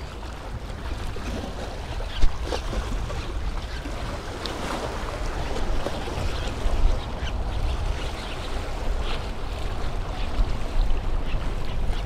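Small waves lapping and splashing against the jetty rocks, with wind rumbling on the microphone; a brief thump about two seconds in.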